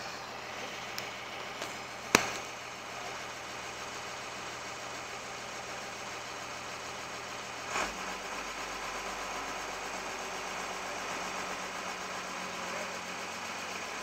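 Building-site noise with a steady engine running under it. A few light clicks lead to one sharp knock about two seconds in, the loudest sound. A dull thump comes about halfway, and after it the engine's low hum changes pitch.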